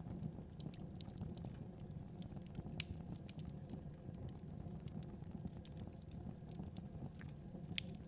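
Wood fire burning, with irregular crackles and pops over a low steady rumble of the flames.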